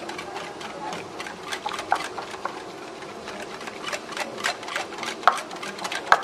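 Wire whisk beating a thin coconut-milk batter in a glass bowl, its wires swishing through the liquid and ticking against the glass in a quick uneven rhythm, with two louder clinks near the end.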